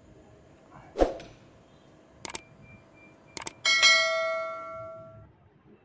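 Subscribe-button sound effect: two quick pairs of mouse clicks, then a bell chime that rings out and fades over about a second and a half. A single thump comes about a second in, before the clicks.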